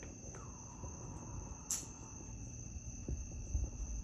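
Crickets trilling steadily in the night, a continuous high-pitched drone. There is a single sharp click about a second and a half in, over a low handling rumble.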